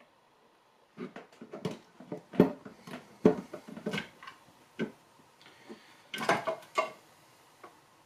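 Cast aluminium transmission case half being rocked and worked loose by hand from a bead of Honda Bond sealant: a run of irregular metal knocks and clunks, with a short lull about five seconds in.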